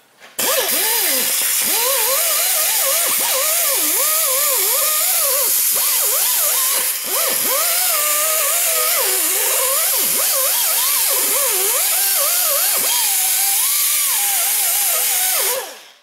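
Air-powered die grinder spinning a 2-inch quick-change surface conditioning disc against a rusty exhaust flange, cleaning it down to bare metal. A high hiss with a whine that wavers up and down in pitch as the disc is pressed on and eased off; it starts about half a second in and stops just before the end.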